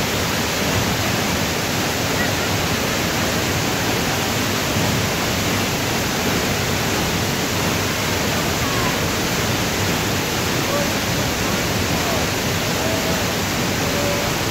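A tall waterfall plunging into its pool: a steady, unbroken rush of falling water.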